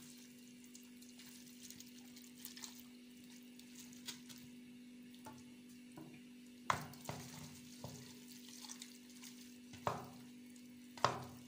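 Hands squishing a wet grated-onion marinade onto chicken pieces in a metal baking tray, with soft handling noises and a few sharper knocks of the pieces against the tray, the loudest near the end. A steady low hum runs underneath.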